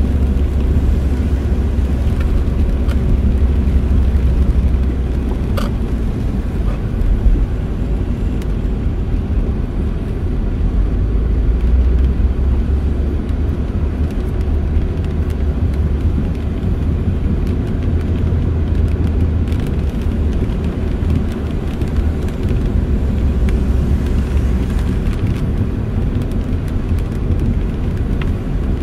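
Steady low rumble of a car's cabin in slow traffic during heavy rain, with rain hissing on the car's body and windshield.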